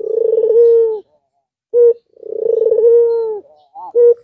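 Albino Barbary dove (ringed turtle-dove) cooing: two long rolling coos, each followed by short clipped notes.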